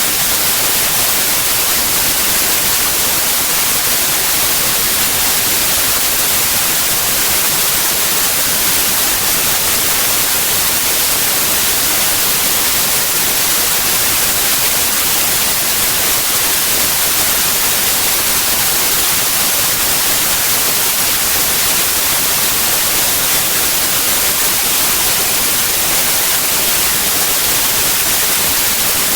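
Steady white noise: an even, unchanging hiss, brightest in the high frequencies.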